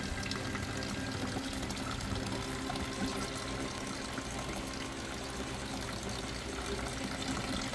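Small garden wishing-well fountain running: pumped water pours steadily out of its bucket and splashes into the basin below.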